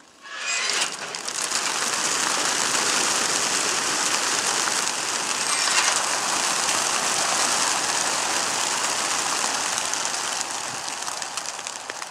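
A large flock of young racing pigeons released together from a transport truck's crates: a sudden, loud, dense clatter of wingbeats that holds steady and fades near the end.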